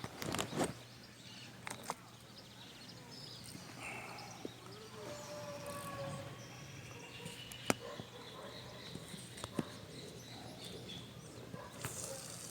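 Birds chirping and calling over steady outdoor ambience, with a few sharp clicks, the loudest about half a second in and again near eight seconds.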